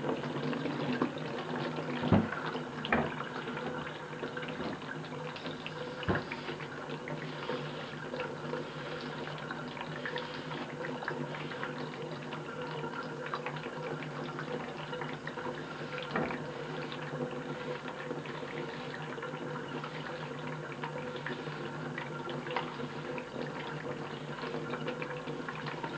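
Steady running water, like a tap left running into a sink, with a few short clicks and knocks.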